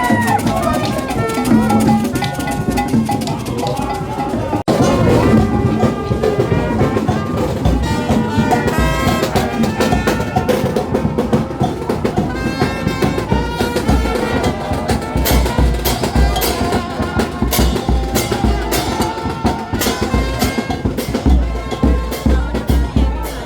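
Music with drums and other percussion keeping a steady beat, broken off sharply about five seconds in and picking up again, with heavier low beats in the second half.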